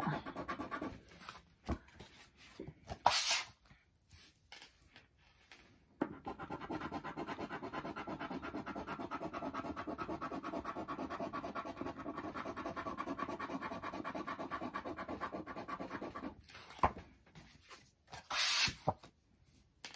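A coin scraping the coating off a paper scratch-off lottery ticket. There are short, scattered scrapes in the first few seconds, then about ten seconds of fast, steady back-and-forth scratching. A couple of brief sharp swishes come near the start and near the end.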